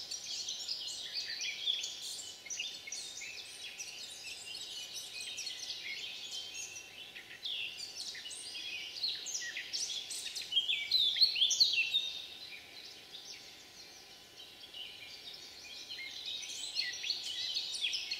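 Several songbirds singing and calling at once: overlapping chirps and short rising and falling whistles, busiest and loudest about ten to twelve seconds in.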